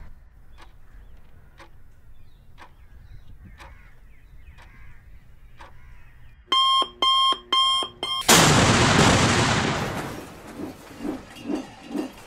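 A bomb's timer ticking faintly and evenly, then beeping four times, followed by an explosion: a sudden loud blast that dies away over about two seconds, with a few short thuds after it.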